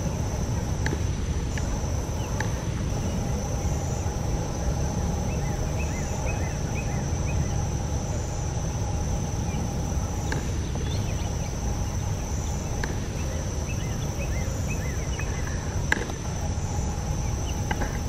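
Outdoor summer ambience of insects droning steadily at a high pitch over a low steady rumble, with a few faint short chirps and a sharp click near the end.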